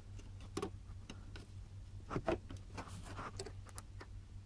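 Faint scattered clicks and taps of fingers pressing and wiggling a plug-in circuit board on its pin-and-socket connectors, trying to seat it, over a low steady hum.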